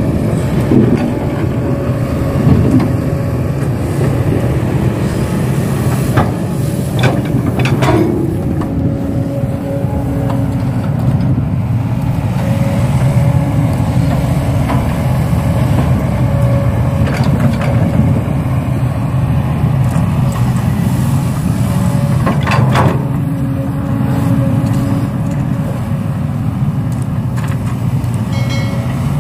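A large engine running steadily, with a few short sharp knocks over it.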